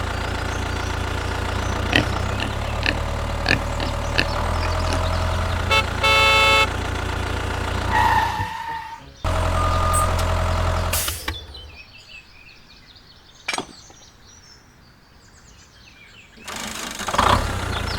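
A vehicle engine running steadily, with a horn sounding once for under a second about six seconds in. The engine drops away twice, leaving a quieter stretch for about five seconds before it comes back near the end.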